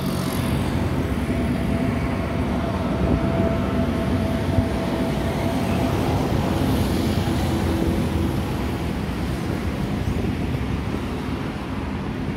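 Steady low rumble of distant engine noise, with a faint steady whine that stops about six seconds in.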